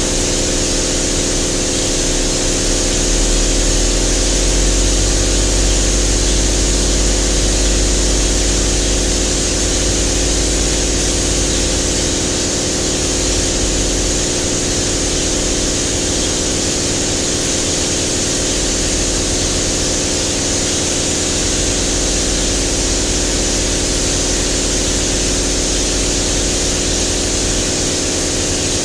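Spray-painting equipment running during the top coat: a steady hiss of air over a constant low machine hum, unbroken throughout.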